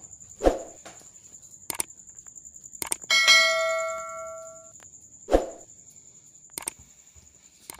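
Subscribe-button sound effects: a soft pop, sharp mouse clicks, and a bright notification-bell ding that rings out and fades over about a second and a half, followed by another pop and click. A thin high steady whine runs underneath.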